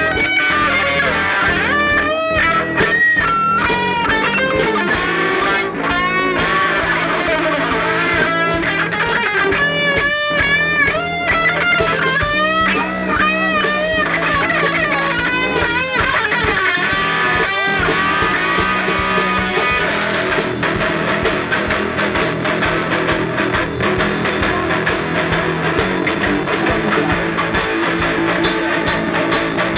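Live rock band playing: electric guitars over bass guitar and drum kit, with a lead line of bending, sliding notes through the first half.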